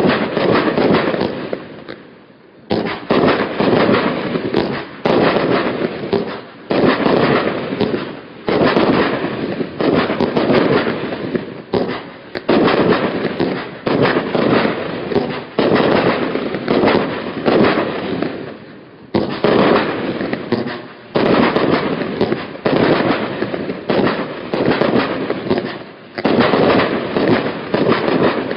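Firework barrage cakes firing in rapid, dense volleys of bangs and crackling, loud and nearly continuous, broken by short gaps every second or so.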